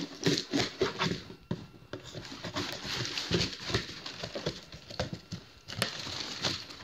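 A knife slitting the packing tape and cardboard of a shipping box, with irregular scraping, rustling and small knocks as the box is handled and turned over.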